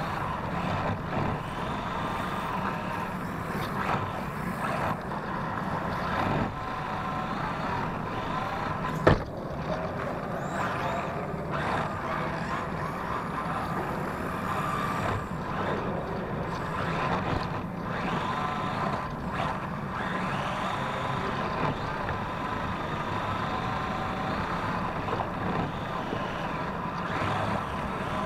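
Onboard sound of an electric RC drift car lapping: the motor and drivetrain running with a steady whine, rising and falling a little with throttle. A single sharp knock comes about nine seconds in.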